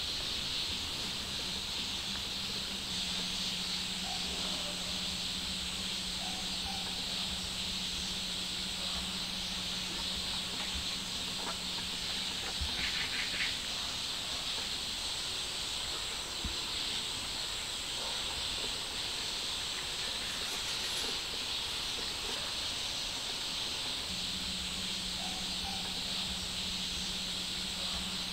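Steady high-pitched outdoor hiss with a faint low hum for much of the time and a few faint bird chirps.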